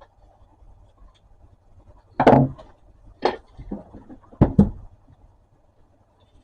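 A handful of short, sharp scrapes and knocks of a hand tool working at the planer's plastic belt cover, which is being scraped clean of plastic burnt where the misaligned cover rubbed on the belt. The first stroke, about two seconds in, is the longest and loudest; four shorter ones follow over the next two and a half seconds.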